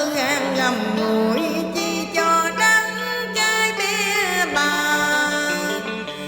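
Instrumental music of a tân cổ song backing track: melodic lines that waver and glide in pitch over a steady low held note.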